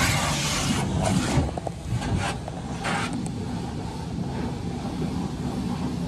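Pressure-washer spray hitting the car's windows and body, heard muffled from inside the cabin: loud hissing bursts in the first three seconds, then quieter, over a steady low rumble.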